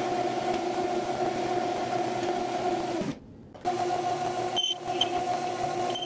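Small benchtop metal lathe running, its spindle drive giving a steady whine while a carbide tool turns a metal rod. The sound cuts out for about half a second around three seconds in, then resumes, with another brief break about a second later.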